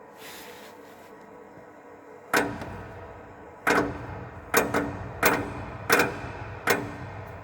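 Knocking in a heating system: six sharp knocks, roughly one every 0.7 s, starting about two seconds in, over a faint steady hum.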